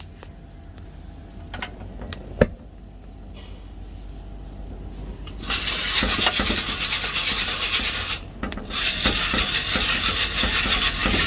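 Freshly roasted coffee beans tumbling and rasping inside a hand-cranked mesh roasting drum as it is turned at the end of the roast. The rasping starts about halfway through and is loud and dense, with a short break near the end. Before it there are only a few light clicks and knocks.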